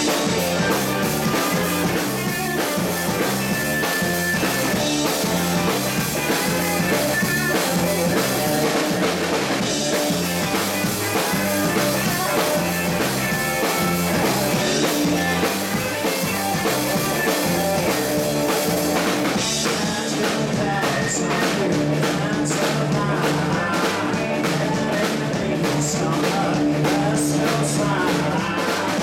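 Live rock band playing: electric guitar, electric bass and drum kit together in a steady beat.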